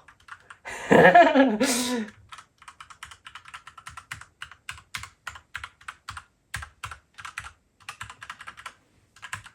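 Keys of a Royal Kludge RK98 mechanical keyboard with linear red switches being pressed, an irregular clatter of sharp key clicks in quick runs. A loud voiced exclamation cuts in about a second in.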